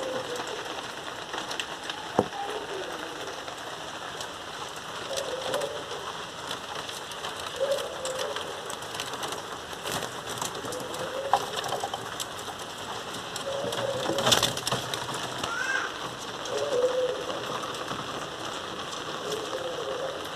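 A bird giving short, low warbling calls about every two to three seconds over a steady hiss, with a few sharp clicks, the loudest about two-thirds of the way through.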